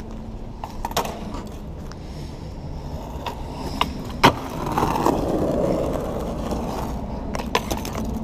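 Skateboard wheels rolling over rough asphalt, a steady rumble that grows louder from about halfway through as the board comes close. Sharp clacks of the board are scattered through it, the loudest a little past four seconds in, with a quick cluster near the end.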